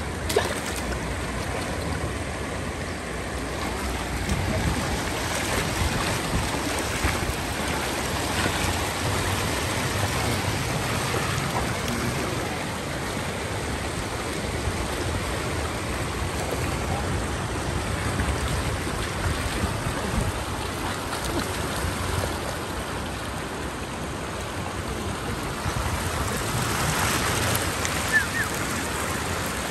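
Steady rush of running floodwater flowing across a road.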